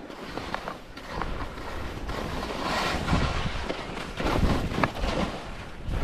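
Skis sliding and scraping down a firm snow slope, with wind buffeting the camera microphone. A hissing edge scrape swells about halfway through, and low thumps follow near the end as the skis ride over bumps.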